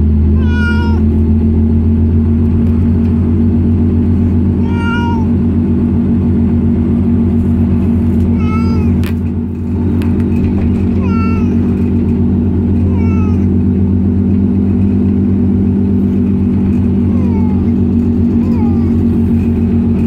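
A cat meowing several times, in short calls a few seconds apart, over a loud, steady low drone.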